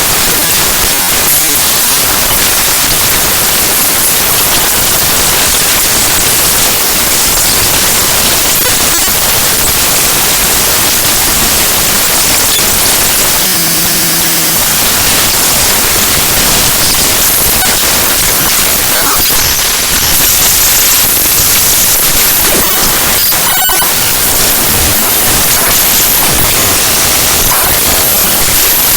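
Raw binary data of a Windows DLL file (gkmedias.dll) played directly as audio, heard as loud, harsh digital static. A short buzzing tone cuts through about fourteen seconds in, and a brief crackle comes near the end.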